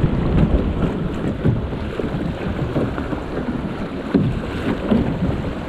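River water rushing and splashing around a kayak moving through a choppy riffle, with wind buffeting the microphone.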